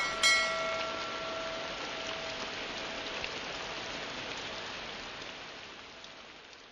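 Steady rain pattering on a surface, fading out toward the end. Right at the start, two struck musical notes sound a moment apart and ring out, decaying over the rain.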